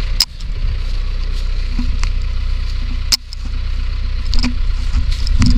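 Vehicle engine idling with a steady low rumble, with a few sharp clicks or knocks, one near the start and one about three seconds in.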